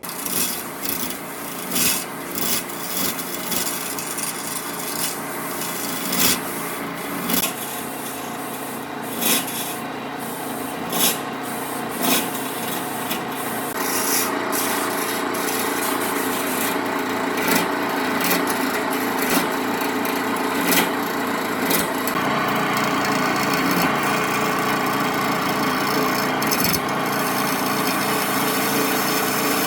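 Wood being sanded or ground: a continuous abrasive scraping, with sharper, louder strokes every second or two in the first half, then a steadier, slightly louder grind.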